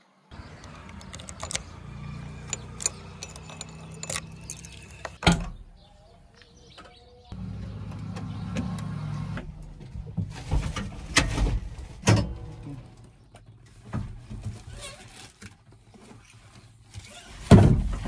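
Knocks, clunks and rattles as someone climbs into a backhoe loader's cab and handles things inside, over a low steady rumble in parts. A heavy thump comes near the end.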